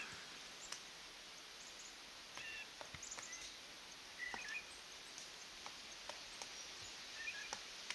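Pileated woodpecker hacking into a tree: faint, irregularly spaced sharp knocks, roughly one a second, as its strikes tear pieces of wood from the trunk.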